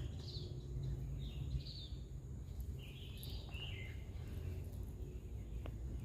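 Birds chirping in short scattered calls, a few clusters about a second apart in the first half, over a steady low rumble.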